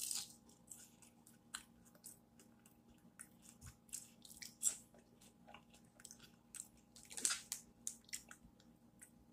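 A person chewing food close to the microphone: irregular wet mouth clicks and smacks, with louder bites near the start, at about four and a half seconds and at about seven seconds.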